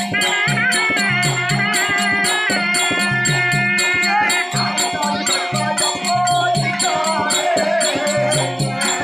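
Live Tamil village-drama (therukoothu) accompaniment music: a fast, steady jingling beat over a repeating drum pattern, with a wavering melody line above.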